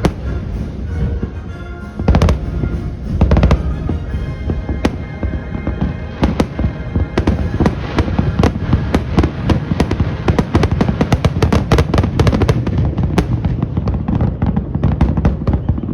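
Fireworks display: many sharp bangs and crackles over the show's music. From about halfway through, the bursts come thick and fast.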